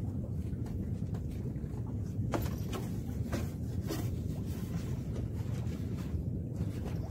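Steady low rumble of wind on the microphone over open sea, with a few sharp clicks scattered through it.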